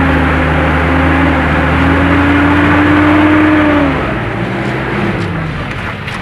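Vehicle engines held at high revs under heavy load as a pickup tows a mired Mitsubishi truck out of deep mud on a tow line, the pitch creeping slightly upward; about four seconds in the revs drop off.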